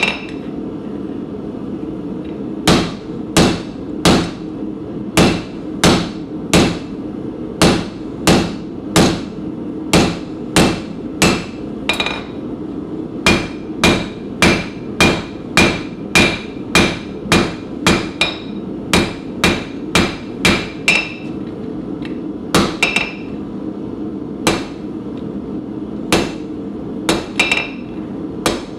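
Hammer blows on a hot stainless steel bar laid over a hardy tool on the anvil, forging bone-shaped segments into a spoon handle. The blows come at about one and a half a second in runs with short pauses, many of them leaving a high ring, over a steady low hum.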